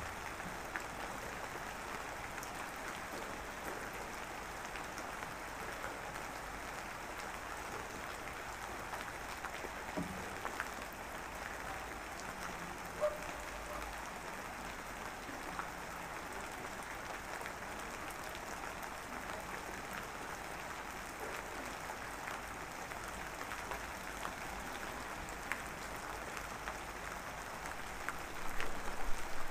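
Steady rain sound: an even patter with a few sharper drops, and louder near the end.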